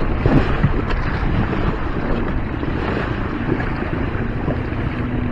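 Wind blowing on the microphone and water rushing and splashing along the hull of a small sailboat, a Siren 17, moving under sail. It is a steady, even noise.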